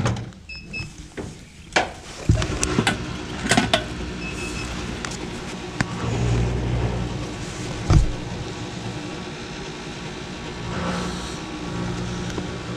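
Fuel dispenser being set for a fill: short electronic beeps, then its pump motor starting about two seconds in and running with a steady low hum, with scattered clicks and knocks.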